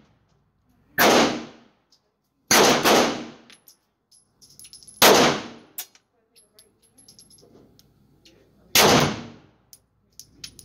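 Smith & Wesson M&P Shield Plus 9mm pistol firing five shots at an uneven pace, two of them in quick succession, each shot echoing in an indoor range. Faint metallic clinks come between the shots.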